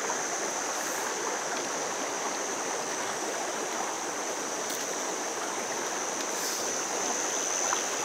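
Mountain stream flowing, a steady wash of running water, with a thin, steady high-pitched whine above it.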